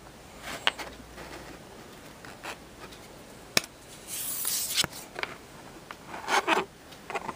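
O-Pee-Chee hockey trading cards being handled by hand: cards sliding and rubbing against each other with a few light ticks, a longer swish about four seconds in and a louder rustle about six seconds in as a card is turned over.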